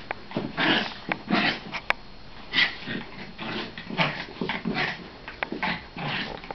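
Two small terriers play-fighting: a quick, irregular run of short breathy growls and snuffles, about two a second, with a few sharp clicks in between.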